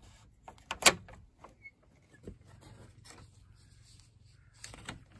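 Metal barrel bolt on a wooden door slid back, with one sharp clack about a second in and a few lighter clicks around it. Near the end a metal hook latch is unhooked with a couple of quick clicks.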